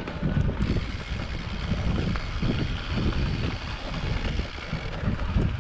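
Wind buffeting the microphone: an uneven, gusty low rumble with a fainter hiss above it.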